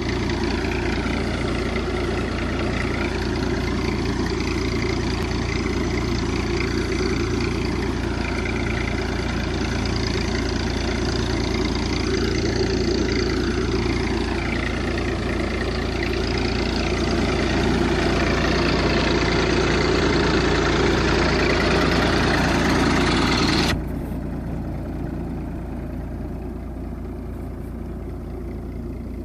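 Tractor engine running steadily while pulling a plastic-mulch laying machine, with a loud hiss and wavering whine from the working machine on top. Late on, the higher noise cuts off suddenly and only the engine hum is left.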